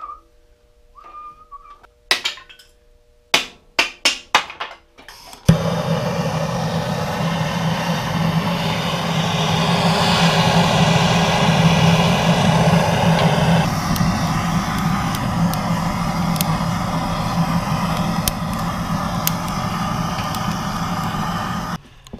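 Scrap wood pieces knocking as they are tossed into a steel wood stove, with a few notes whistled. About five seconds in, a propane torch lights with a pop and runs with a loud, steady hiss and low hum as its flame plays on the kindling, with a few sharp crackles. It cuts off abruptly near the end.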